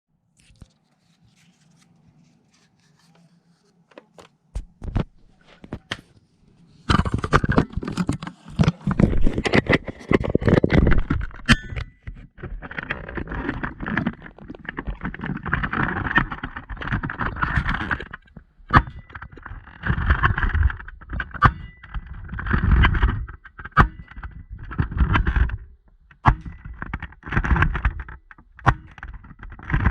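Close-up handling noise from a Nerf blaster: scraping, rattling and sharp plastic clicks. A few isolated clicks come first, then from about seven seconds in the noise turns loud and dense, coming in uneven bursts.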